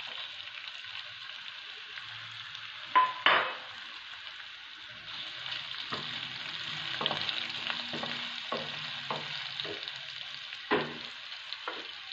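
Food sizzling in ghee in a pan on the stove with a steady hiss, stirred, with about a dozen short scrapes and knocks against the pan: a loud pair about three seconds in and most of the rest in the second half.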